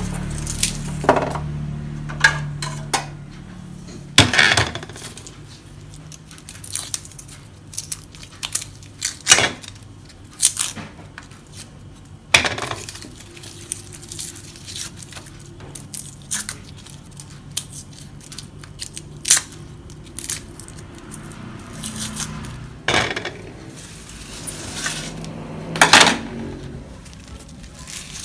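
A kitchen knife scraping and clicking as garlic cloves are peeled by hand, with peeled cloves dropped into a ceramic bowl giving light clinks. Irregular sharp clicks and knocks come every second or two.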